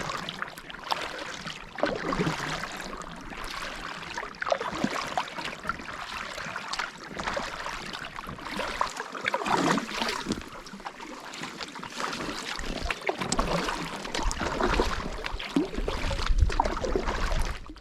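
Water splashing and trickling in irregular strokes, with wind rumbling on the microphone toward the end. The sound cuts off suddenly at the end.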